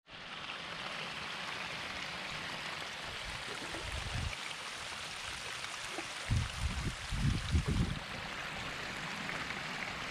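Small stream of water leaking out from under a pile of beaver-chewed sticks and splashing steadily down a muddy bank, with a few low rumbles about six to eight seconds in.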